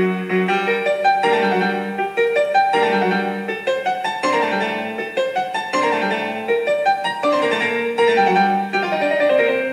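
Background piano music: a steady run of struck notes and chords that ring and fade.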